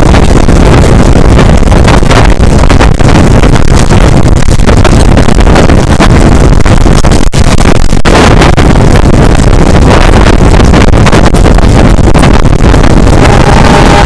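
Loud wind buffeting a microphone held out of a moving passenger train's window, over the steady rumble of the train running along the track. A faint steady tone comes in near the end.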